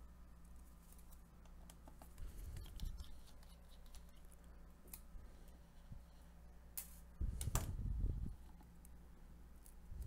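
Faint handling noise of repair work inside an opened MacBook Pro: small clicks and scrapes of gloved hands, a screwdriver and parts on the laptop. A couple of sharper clicks come about two-thirds of the way in, followed by about a second of heavier handling.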